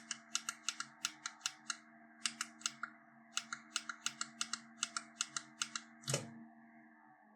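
Small electric fan motor running with a steady hum, overlaid by a run of sharp clicks at about four a second with two short breaks. About six seconds in there is a thump, and the hum then dies away.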